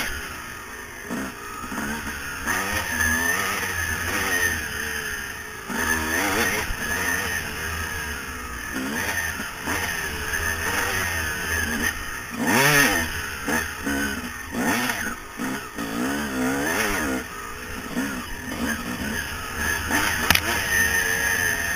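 2000 Yamaha YZ250 two-stroke single-cylinder dirt bike engine revving up and down as the rider accelerates, shifts and backs off along a trail, with wind buffeting the helmet-mounted microphone.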